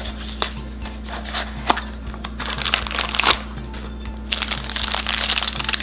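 Cardboard blind box being opened and the crinkly plastic bag inside pulled out and handled: scattered clicks and crackles, then steadier crinkling in the last second and a half. Background music plays underneath.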